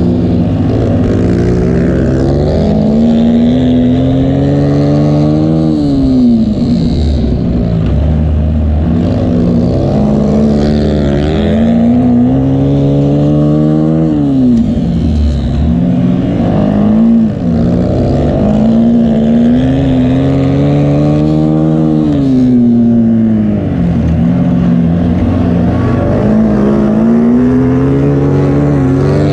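A racing vehicle's engine running hard. Its pitch climbs for several seconds and then drops sharply, over and over, as it accelerates and shifts or comes around past the listener.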